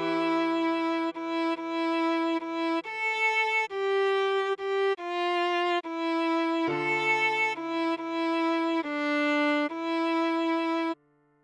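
Viola playing a melody of short separate notes, most of them on the E above middle C, over a low held note that changes about two-thirds of the way through. The music stops just before the end.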